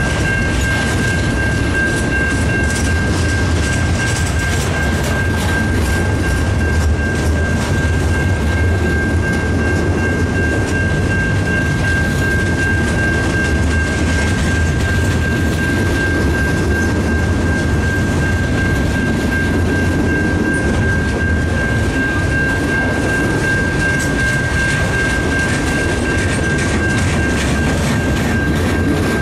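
Freight train's cars rolling past: a steady rumble of steel wheels on rail with a continuous high-pitched tone over it.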